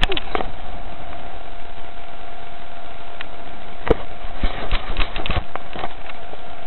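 Steady rush of ocean surf breaking on the beach, with a knock right at the start and a cluster of knocks and rustles from the camera being handled between about four and five and a half seconds in.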